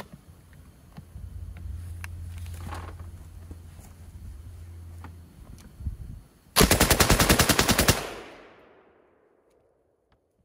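A Châtellerault FM 24/29 light machine gun, chambered in 7.5 mm French, fires one short automatic burst of about a second and a half, with its echo dying away over the following second.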